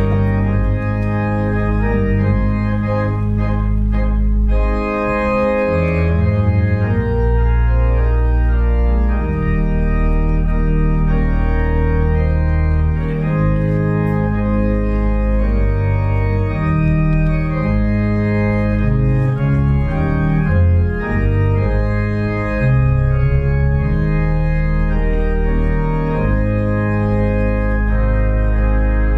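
Organ music: slow sustained chords over a deep held bass, the chords changing every second or two.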